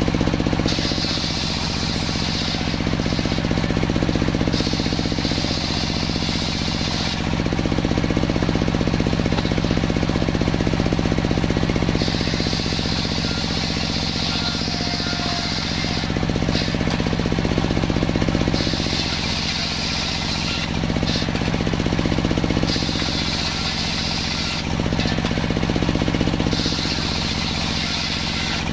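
Table-mounted circular saw cutting boards of salam wood: the saw's drive runs steadily throughout, and about six times a board passes through the blade, each cut adding a high-pitched whine.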